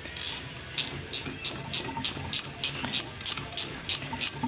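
Ratcheting wrench clicking steadily, about four to five sharp clicks a second, as it is worked back and forth to turn out a double-nutted bolt.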